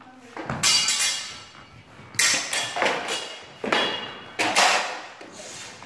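Steel practice swords and bucklers clashing in a sword-and-buckler bout: a rapid series of sharp metallic strikes, some in quick pairs, each ringing briefly and echoing in a large hall.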